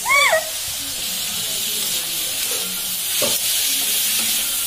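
Chopped vegetables sizzling in hot oil in a wok, stirred with a steel spatula, with a steady frying hiss. A short pitched note sounds right at the start, and the spatula knocks once about three seconds in.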